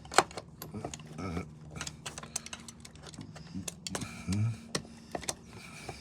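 Scattered light clicks, taps and rustles of hand work with tools and material, over a faint steady low hum.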